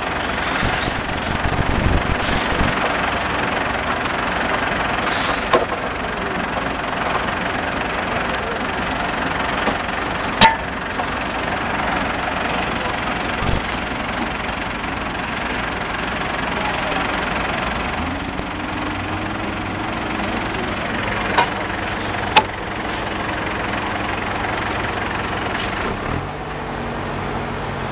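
Core drilling machinery running steadily, with a handful of sharp clicks or knocks. About two-thirds of the way through, a steady low engine hum comes in.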